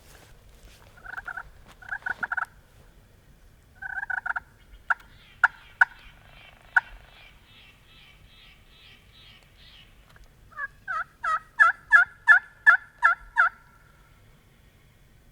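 Turkey yelping and clucking: two short strings of yelps, a few sharp single clucks, then a loud run of about eight evenly spaced yelps near the end.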